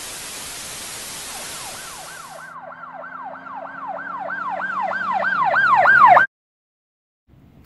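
Hiss of TV static, then an emergency vehicle's yelp siren that fades in and grows louder, wailing up and down about three to four times a second, before cutting off suddenly about six seconds in.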